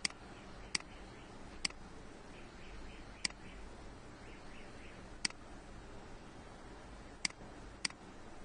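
Computer mouse clicking: seven sharp single clicks at irregular intervals over a faint low hum.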